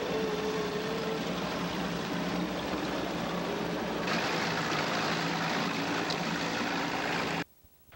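Boat engine running steadily under a rush of wind and water on the camcorder microphone, heard from on board a boat under way. The sound turns hissier at an edit about halfway through and drops away abruptly near the end.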